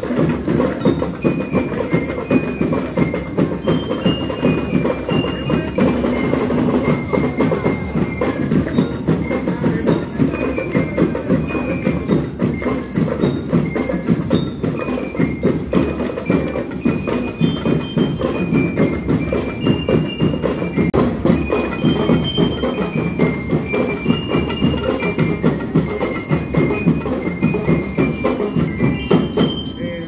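Marching band playing, with bell lyres ringing out a quick melody of short metallic notes over continuous percussion.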